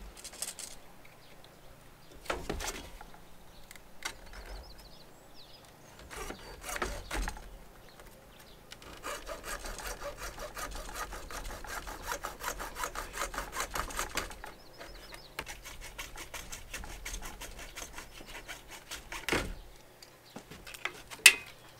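Hacksaw cutting through plastic pipe with quick, even back-and-forth strokes for several seconds in the middle, with a few knocks from handling the work before and after.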